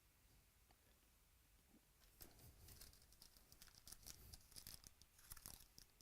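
Faint crinkling and rustling of trading card packs being handled, in quick crackles from about two seconds in until just before the end.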